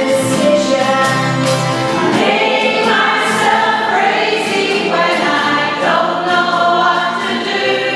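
A choir singing a song over instrumental accompaniment, in long held notes that change every second or so.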